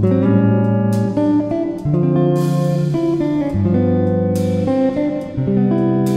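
Instrumental background music, with pitched notes changing about once a second.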